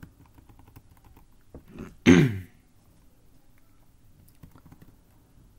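Faint computer-keyboard clicks as digits are typed into a Sudoku grid. About two seconds in comes one short, loud vocal noise from the solver, like a throat clear, falling in pitch.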